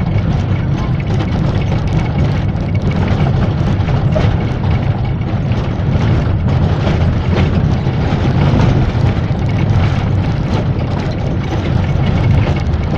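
Minibus driving along a country road, heard from inside the cabin: a steady, low engine and road rumble.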